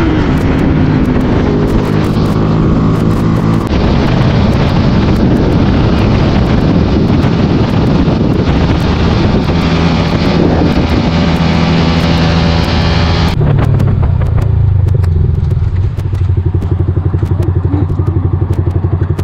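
A Yamaha 155 cc single-cylinder sport motorcycle engine running at high revs at top speed in sixth gear, under heavy wind noise. About 13 seconds in, the wind noise drops away abruptly and a low, pulsing engine note is left.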